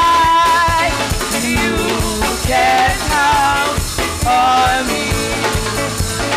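Church chorus music: voices singing a melody over a band with a drum kit keeping a steady beat.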